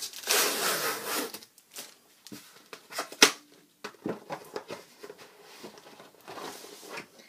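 A cardboard book mailer being torn open and handled. It starts with a stretch of tearing and rustling, followed by scattered sharp clicks and rustles of card; the loudest crack comes about three seconds in.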